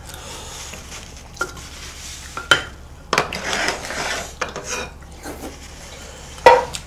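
Chopsticks and side-dish plates clicking and clattering against each other and the tabletop as dishes are handled, with a scraping stretch in the middle and the sharpest knock near the end.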